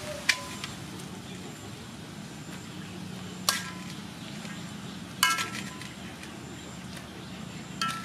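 Metal spatula clanking against a wok a few times, each strike sharp and ringing, as stir-fried noodles are tossed, over a steady hiss of frying.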